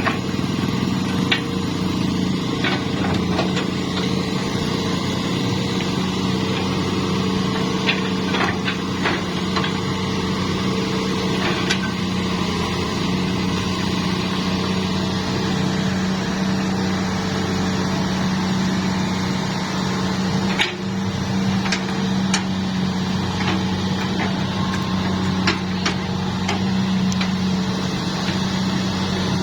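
Hitachi hydraulic excavator's diesel engine running steadily while the machine digs fill soil, with scattered short knocks and clicks from the bucket working the earth.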